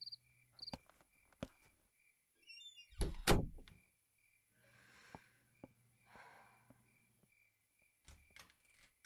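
A door creaks briefly and then shuts with a heavy thud about three seconds in, followed by softer rustles and a few light knocks. Crickets chirp steadily and faintly in the background.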